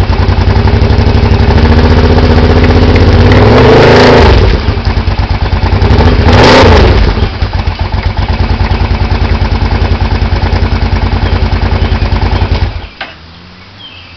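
2008 Kawasaki Brute Force 750's V-twin engine running loudly through a full Muzzy exhaust: idling, revved twice, about four and six and a half seconds in, then stopping abruptly near the end.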